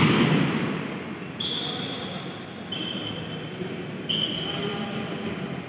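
A futsal ball struck hard right at the start, the thud echoing through the hall. After it come several short high squeaks from shoes on the wooden court over the echoing hum of play.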